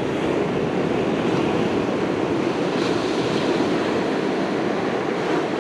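Ocean surf washing on the beach with wind buffeting the microphone, a steady rushing noise.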